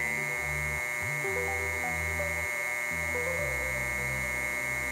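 A salvaged computer hard drive's spindle motor spinning its sandpaper-covered platter as a small disc sander, giving a steady high whine.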